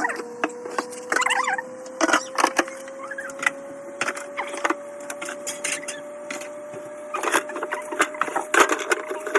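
Containers and items being handled in a refrigerator during cleaning: irregular knocks, clicks and clatter, with a faint steady tone slowly rising in pitch underneath.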